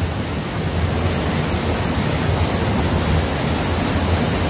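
Fast-flowing river water rushing steadily over rocks.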